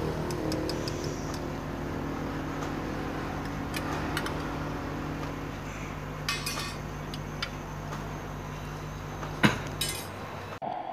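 Metal spoon clinking and scraping against glass jars and their hinged aluminium lids as toppings are scooped out, with scattered clinks, the loudest about nine and a half seconds in. A steady low hum runs underneath and stops near the end.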